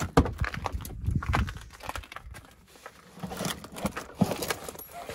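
Rustling and irregular knocks of tool bags and gear being handled on a vehicle seat, with sharper knocks near the start and about four seconds in.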